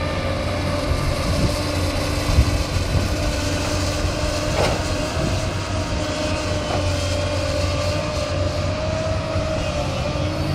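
Hyundai crawler excavator's diesel engine and hydraulics running steadily under load with a held whine while it digs and loads soil into a dump truck. There is a short knock about halfway through.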